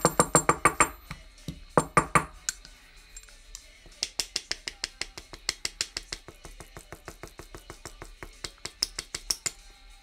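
Brass hair stacker with moose body hair inside, tapped rapidly on the desk to even the hair tips: about seven sharp knocks a second. A loud run in the first couple of seconds, then after a short lull a quieter run that stops near the end.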